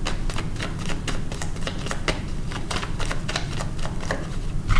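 A tarot deck being shuffled by hand: a quick, irregular run of card clicks and flicks.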